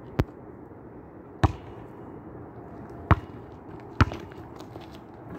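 A basketball bouncing on an asphalt court: four single sharp bounces about one to one and a half seconds apart.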